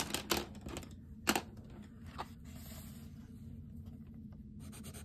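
Sheets of paper and a pencil being handled on a desk: a few light taps and clicks in the first two seconds or so, then faint soft rustling.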